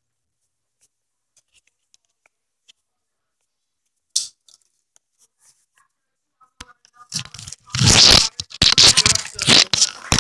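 Rustling and scraping of a phone being handled and jostled against its microphone: a short scrape about four seconds in, then loud, ragged crackling in irregular bursts from about seven seconds in.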